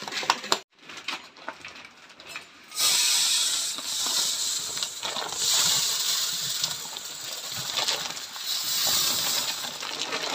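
Hands rustle in a woven plastic sack of raw biryani rice. Then, from about three seconds in, a steady hiss of dry rice grains pouring from the sack into a steel pail.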